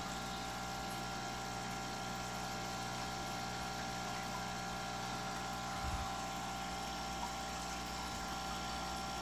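Steady electric hum of an aquarium air pump running, with a faint low bump about six seconds in.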